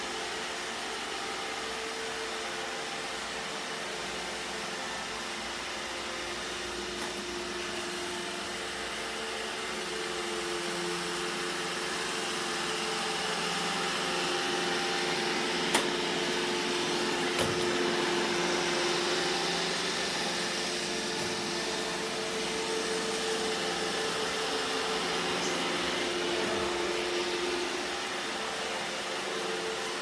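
iRobot Roomba e5 robot vacuum running on a wooden floor: a steady whirr from its suction motor and brushes, with a low two-note hum, getting louder through the middle stretch. Two sharp clicks come about halfway through.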